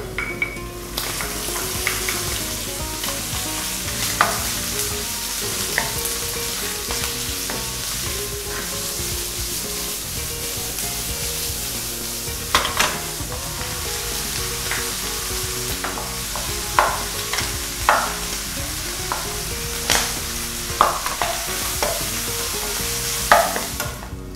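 Bacon and onion sizzling in oil in a frying pan as they are stir-fried with a wooden spatula. The sizzle starts about a second in and stops just before the end, with about eight sharp knocks of spatula and pan scattered through it.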